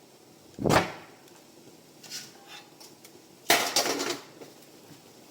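Kitchenware being handled: a single dull thump, then about three seconds later a short rattling clatter of sharp clicks, louder than the thump.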